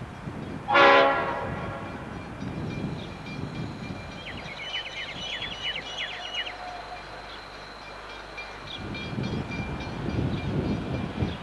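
A train's horn gives one short, loud blast about a second in, over the rumble of the train running through. The rumble fades, then builds again near the end as another train approaches.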